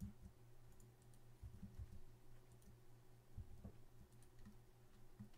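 Near silence with faint, scattered clicks of a computer keyboard and mouse over a low steady hum.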